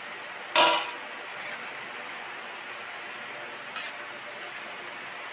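A knife blade striking a stainless steel plate while cutting an omelet: one loud metallic clink about half a second in that rings briefly, then two faint clinks, over a steady hiss.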